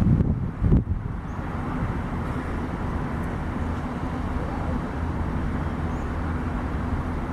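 Boeing 737-800's CFM56 jet engines running with a steady rumble, with a couple of low wind thumps on the microphone right at the start.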